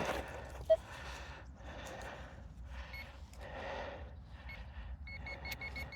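Soft scraping and rustling of soil being worked by hand in a dug hole, about once a second. Near the end a pinpointer starts beeping rapidly as it closes in on the buried metal target, here a bit of lead.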